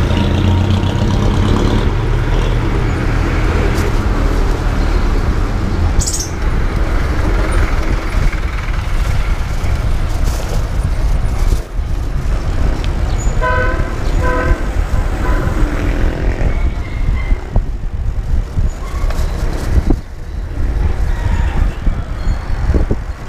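Street traffic noise with a steady low rumble, heard from a bicycle riding among motor vehicles; about halfway through, a vehicle horn gives two short toots in quick succession.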